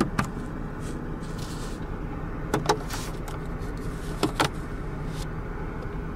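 Three pairs of sharp plastic clicks, press and release, from the interior-light buttons on the overhead console of a Mercedes-Benz CLS 350 (W219), over a steady low hum.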